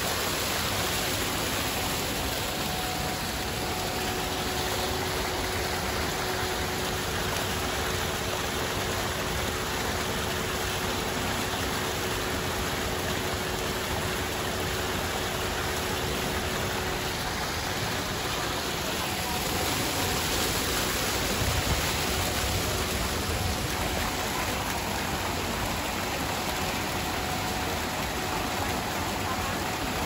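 Fountain jets splashing steadily into a shallow tiled pool, a continuous even rush of falling water.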